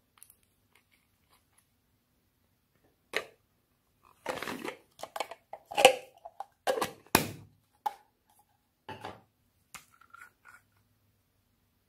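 Small plastic bottles and caps handled close to the microphone: a series of sharp clicks and crackles, one about three seconds in, then clustered and loudest for the next few seconds, and a few fainter ones near the end.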